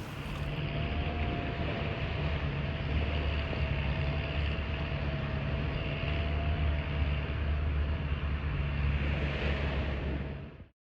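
An engine running steadily, a low rumble with a faint constant whine, with some wind noise; it cuts off abruptly near the end.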